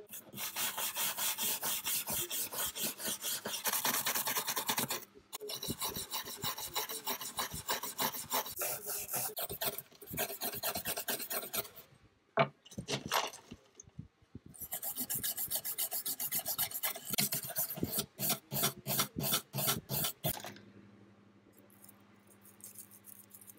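Fast back-and-forth abrasive strokes by hand on the rusty steel calipers, scraping off rust and gunk. The strokes come in runs with short breaks, slow to a few separate strokes near the end, then stop.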